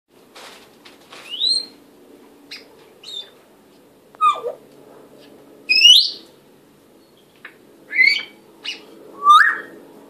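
African grey parrot whistling and chirping: a string of short calls, most of them quick rising whistles and one falling, with the loudest a little before the middle. A faint steady hum sits underneath.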